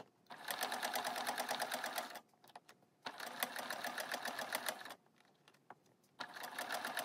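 Electric domestic sewing machine running a straight stitch through fabric and bias tape, its needle clattering rapidly and evenly. It sews in three short runs of about two seconds each, with brief stops between them.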